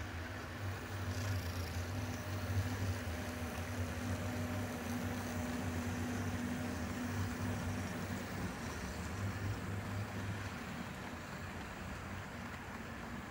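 HO scale model ore train running past: the model diesel locomotives' motors and drives give a steady low hum over the rolling noise of wheels on the track, louder in the middle and fading after about ten seconds as the locomotives move away.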